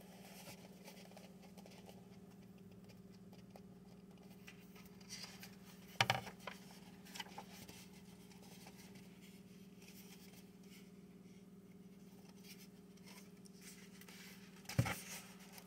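Faint rustling and flapping of a hardcover book's paper pages being turned and handled, a few brief rustles and taps, the clearest about six seconds in and again near the end, over a steady low hum.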